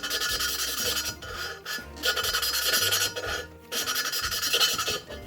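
A steel engine valve being hand-lapped against its seat in a 5.3 LS cylinder head, spun back and forth with gritty lapping compound: a rasping, grinding scrape in repeated strokes with short breaks between them. The grinding is the compound cutting the valve face and seat until they are smooth.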